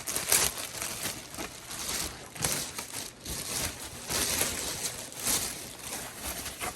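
Packaging crinkling and rustling in irregular bursts as a handbag is unwrapped by hand.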